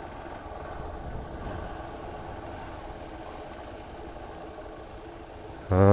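Hero Xpulse 200 4V's single-cylinder engine running steadily at low revs, close to idle. A man's voice starts just before the end.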